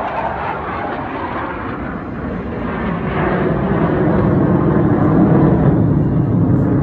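Jet engine noise from a formation of F-16 Fighting Falcon fighters climbing overhead: a steady rumble that grows louder and deeper from about halfway in.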